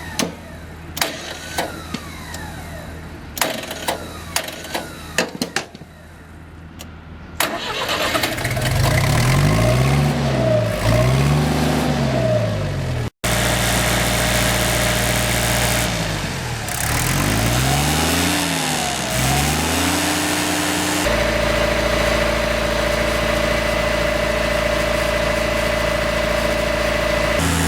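Mitsubishi D2650 farm tractor's diesel engine starting after a few seconds of sharp clicks and knocks. It is then revved up and down several times, and later held steady at a high speed.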